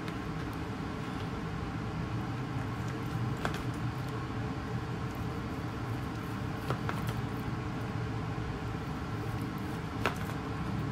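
A knife slicing boiled liver on a plastic cutting board, its blade tapping the board a few times. Under it runs a steady low machine hum.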